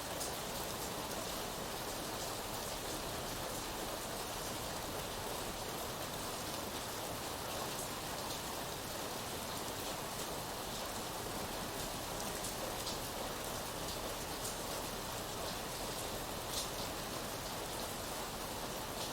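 Steady rainfall, a continuous even hiss with scattered drops ticking on a surface.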